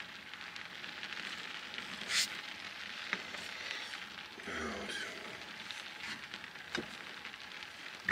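Steady patter of rain on a pickup truck's camper shell. There is a sharp clink about two seconds in, plus light handling of the stove's metal cup and a mug.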